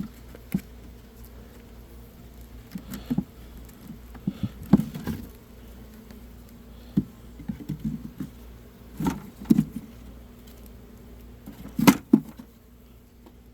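Wooden beehive frame being worked out of the hive box: irregular knocks and short scrapes of wood against wood, the sharpest knock near the end. Under them a faint steady hum of honeybees.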